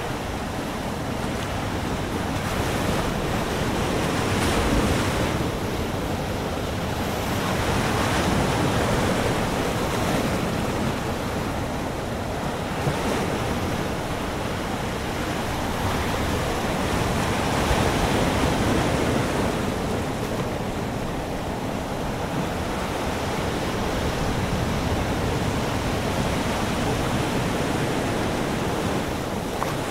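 Ocean surf breaking on a sandy beach, a continuous wash that swells and eases every few seconds, with wind on the microphone.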